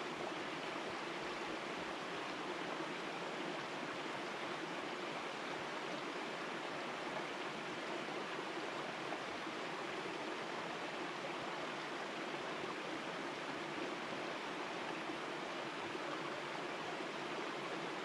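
Small mountain creek flowing over rocks: a steady, even rushing of water.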